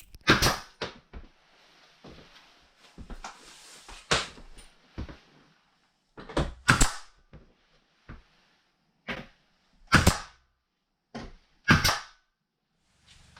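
Nail gun firing nails into wooden wall panelling: a series of sharp shots at uneven intervals, some in quick pairs.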